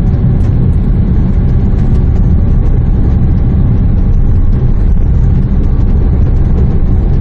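Steady low rumble of engine and road noise inside the cabin of a 2008 Renault Samsung QM5 SUV driving along.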